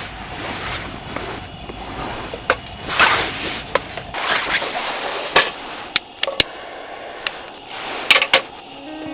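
Handling noises: rustling and scraping with a series of sharp clicks and knocks, the sharpest about five seconds in and again near the end.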